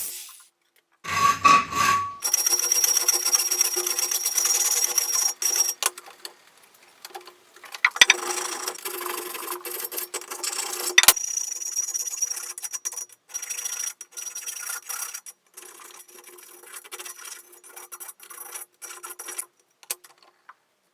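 A tool abrading metal in runs of a few seconds, broken by short pauses, with a steady high whine through the louder runs and a couple of sharp clicks partway through.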